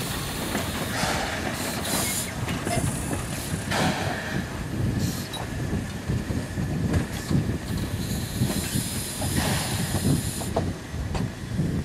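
Steam locomotive being turned slowly on a hand-pushed turntable: a steady low rumble with scattered knocks from the moving turntable and wheels. The engine hisses steam in bursts, the longest near the end.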